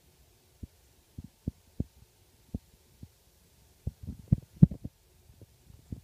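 Irregular dull low thumps and bumps, sparse at first, then a louder cluster about four to five seconds in: handling noise from a hand-held phone rubbing and knocking against its microphone.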